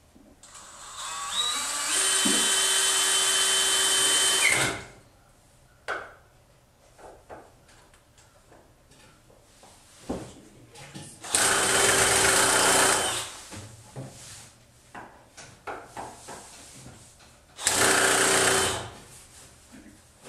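Yellow cordless drill driving screws into a wooden frame in three runs: a long one of about four seconds that builds up at the start, then two shorter ones. Light knocks and handling noises come between the runs.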